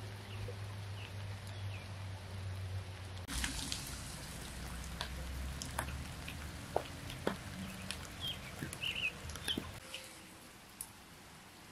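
Steady rain falling, with scattered taps of raindrops dripping close by and a few short bird chirps. The rain gets quieter near the end.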